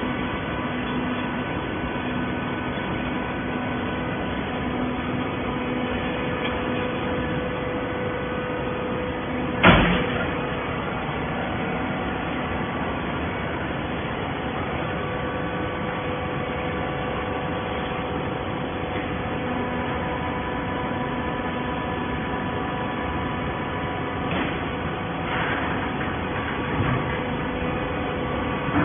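Horizontal baling press running: a steady machine hum with several held tones, broken by one loud sharp bang about ten seconds in and a few lighter knocks near the end.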